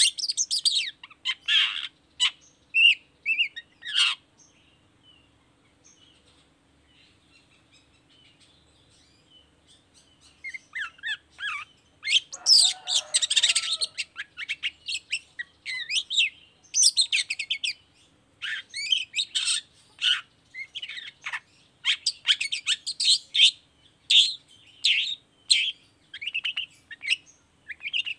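Long-tailed shrike (cendet) singing: a few quick, shrill chattering phrases, then silence for about six seconds. After that comes a rough, raspy phrase and a long run of rapid, varied notes to the end.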